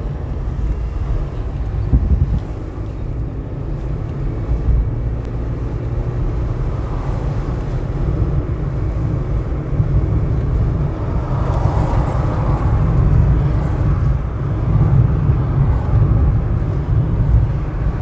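Car driving at road speed: a steady low rumble of engine, tyre and wind noise.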